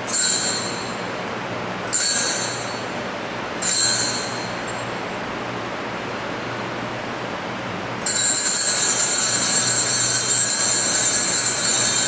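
Altar bells rung at the elevation of the chalice, marking the consecration of the wine: three short rings, each fading away, a couple of seconds apart, then continuous jangling ringing from about eight seconds in.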